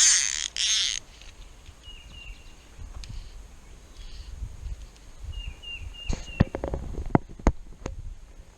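Two short, loud bursts of hiss at the very start, then small birds chirping faintly in short phrases of a few notes, twice. A handful of sharp clicks and knocks come near the end.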